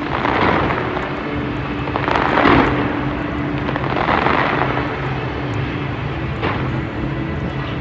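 Fireworks display: three big rumbling bursts about two seconds apart, then a sharp crack near the end, over a steady low hum.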